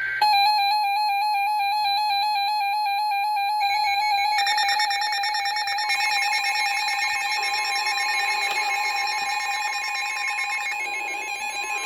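Emergency Alert System attention tone: a loud electronic alert sound of steady, warbling tones. More tones are layered in about four and again about six seconds in.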